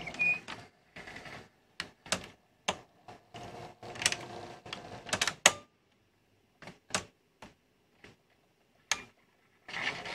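National NV-G20 VHS deck mechanism working through a cassette: a string of irregular clicks and short whirring bursts from its motor, gears and tape guides as it moves the tape into place. A steady noise starts near the end.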